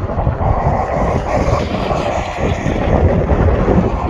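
Storm wind buffeting the microphone in gusts over the steady rumble of a Boeing 777's jet engines on the runway after landing.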